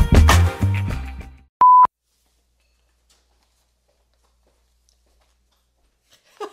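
Upbeat outro music fading out over the first second and a half, then a single short, steady electronic beep, followed by near silence.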